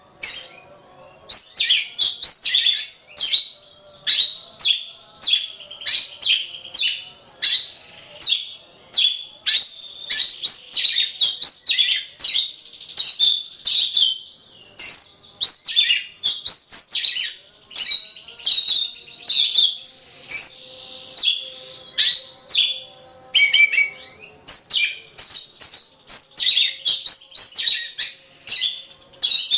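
Oriental magpie-robin (kacer) singing a continuous, rapid string of short chirps and sweeping whistled notes, several notes a second without pause.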